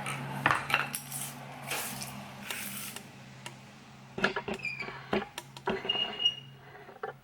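Hard chunks of cured Bondo body filler clinking and clattering against each other as they are handled. The clicks are scattered, with a few short scrapes early on and a busier run of clicks and light pings about four to six seconds in, over a steady low hum.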